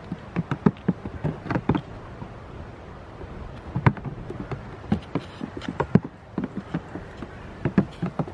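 Goat kids' hooves clattering and knocking on stacked black plastic blocks as they climb and jump about: irregular taps, with louder knocks about four and six seconds in.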